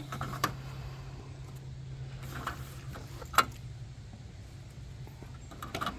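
Siding panel being pried and pulled from the wall: a few sharp clicks and snaps as the stubborn, nailed piece is worked, the loudest snap about three and a half seconds in, over a steady low hum.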